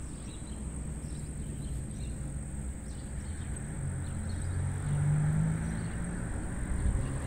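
A motor vehicle's engine running with a low hum, growing louder from about four seconds in and peaking around five seconds.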